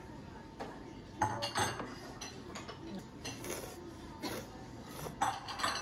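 Soup spoon and chopsticks knocking against a ceramic ramen bowl while eating: a handful of short, light clinks scattered through, the two loudest close together about a second in and again near the end.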